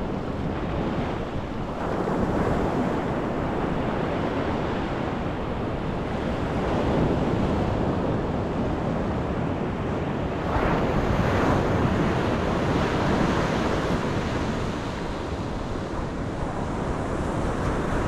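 Small waves breaking and washing up a sandy beach, with wind buffeting the microphone. The wash swells louder about two seconds in and again past the middle.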